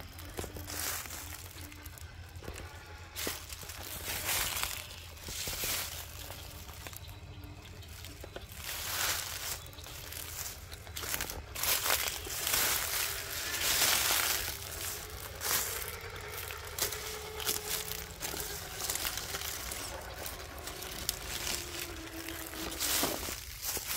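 Traxxas TRX4 RC crawler working over weathered wood and dry leaves: irregular crunching and scraping of its tyres, with a faint motor whine now and then.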